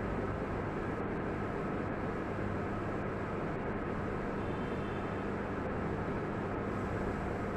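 Steady room noise: an even hiss with a low, steady electrical hum underneath and no speech.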